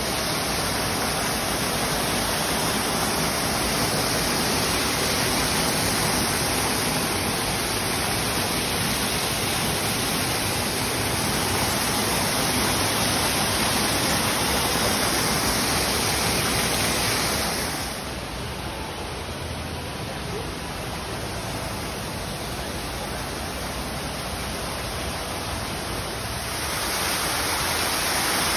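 Ornamental waterfall pouring down a rockwork wall and splashing into a pool: a steady rush of falling water. It drops back somewhat about two-thirds of the way through and comes up again near the end.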